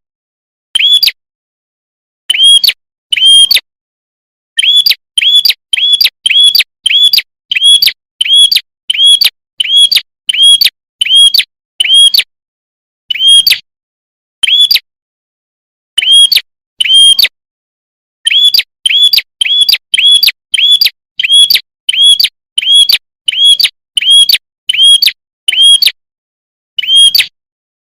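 Prenjak kepala merah lure call: one sharp, high chirp repeated about twice a second in runs, with short pauses between runs. Each chirp sounds the same, loud and clean against dead silence, as in a looped bird-trapping call.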